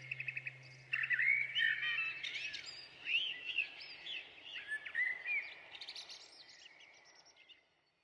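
Morning chorus of songbirds, a song thrush among them with quick repeated notes, fading out gradually toward the end. A low steady hum dies away in the first second or so.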